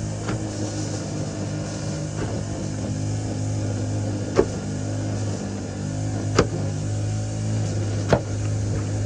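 An engine running steadily with a low hum, and three sharp knocks about two seconds apart in the second half.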